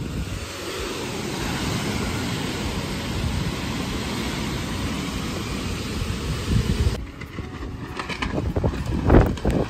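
Heavy rain mixed with hail coming down in a strong wind, a dense steady hiss. About seven seconds in it gives way to gusts of wind buffeting the microphone, rising near the end.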